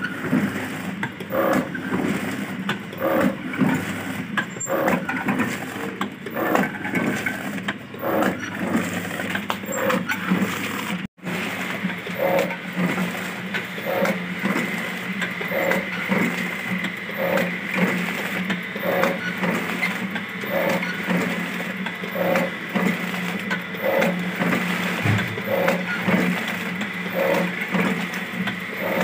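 Automatic naswar packing machine running: a steady motor hum under an even clack from its rotating filling turret, a little more than once a second. Partway through, a steady high whine joins in.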